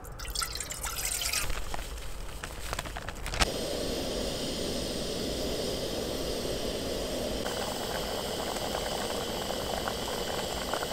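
Water poured from a bottle into an aluminium saucepan, splashing and rising in pitch as the pot fills. About three and a half seconds in, a click, then a steady hiss as the pot of soup heats up and begins to simmer.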